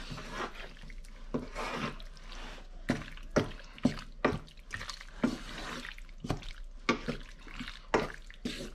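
A wooden spatula stirring pasta shells through a thick creamy sauce in a frying pan: wet squelching with irregular knocks of the spatula against the pan.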